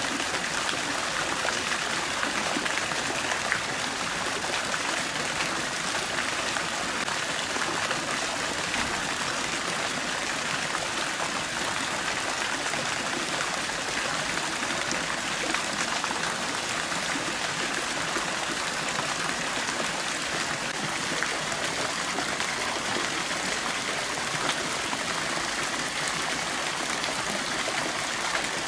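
Water running and trickling steadily, a constant splashing flow.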